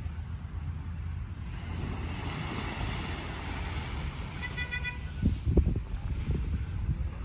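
Road traffic with wind buffeting the microphone: a vehicle swells past, and a car horn sounds briefly about four and a half seconds in.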